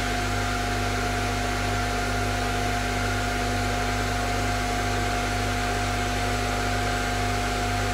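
Steady electrical hum with a fan-like whir from the amplifier test bench equipment, unchanged in level while the amplifier's output is turned up.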